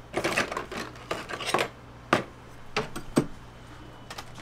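Scraping and rustling as a crisp waffle is handled and spread on a paper wrapper, in a string of short bursts with a couple of sharp taps, over a steady low hum.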